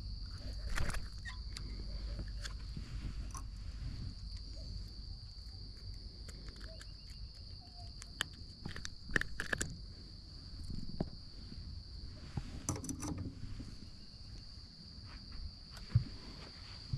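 A steady high insect buzz carries on in the background, while a fish is unhooked and handled in a boat, giving scattered clicks and knocks, the loudest knock near the end.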